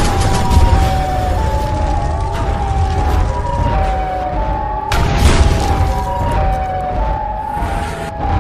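A two-tone siren sound effect, its high and low notes alternating and sliding slightly down over and over, over a steady low rumble, with a noisy blast about five seconds in.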